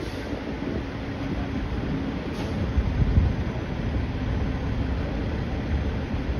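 Heavy diesel vehicle engine running with a steady low rumble, briefly louder about three seconds in.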